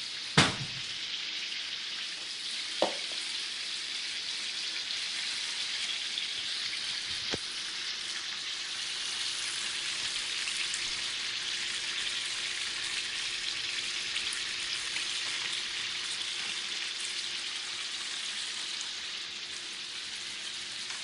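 Chicken frying in hot oil, sizzling steadily. There is a sharp knock about half a second in and a smaller one near the three-second mark.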